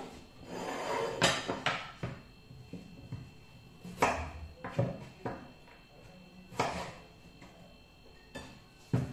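A wooden chopping board is laid on the worktop, then a kitchen knife slices a carrot on it: a handful of separate, irregularly spaced knocks of the blade hitting the board.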